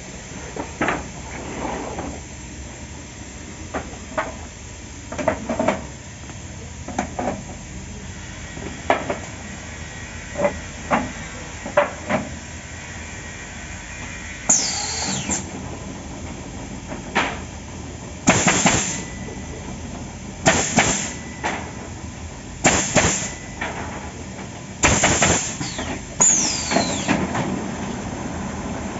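Stringer pallet nailing machine running: irregular knocks and clunks, then from about halfway several short, loud hissing blasts, two of them with a falling squeal.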